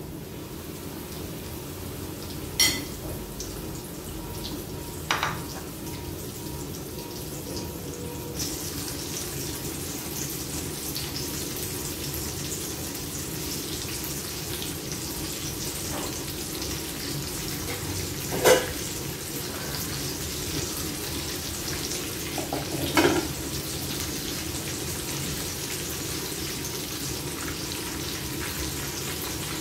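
Breaded chicken pieces frying in hot oil in a frying pan, a steady sizzle that grows louder about eight seconds in. Four sharp metal clinks of kitchenware stand out above it.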